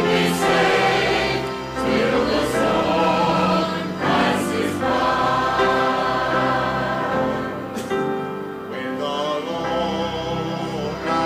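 Church choir singing a gospel song with accompaniment.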